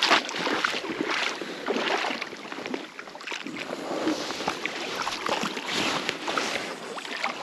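Water splashing and lapping, with wind buffeting the microphone.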